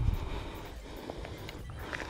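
Wind rumbling on the microphone, with a thump right at the start and scattered light clicks and knocks of handling noise.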